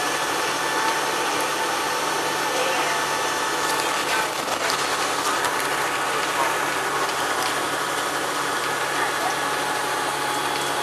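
Single-deck bus engine running steadily while the bus drives, heard from the rear of the cabin near the engine, with a constant low hum under road and cabin noise.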